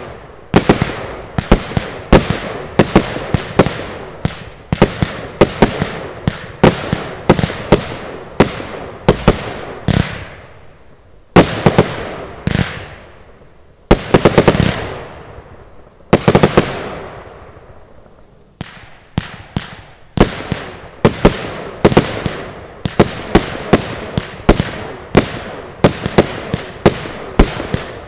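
Zena Golden Box 70-shot firework cake firing: a rapid series of sharp shots, about one and a half to two a second, as the gold bursts open. Around the middle the shots thin out briefly and a fading hiss follows the bursts.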